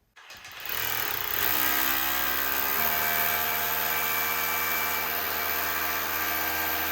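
DeWalt SDS hammer drill starting up and running steadily as it hammer-drills into a half-inch concrete skin over concreted brick.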